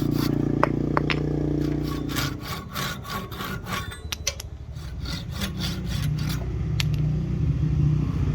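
Hand tool cutting into rosewood in quick, repeated back-and-forth strokes, about three to four a second, over a steady low hum.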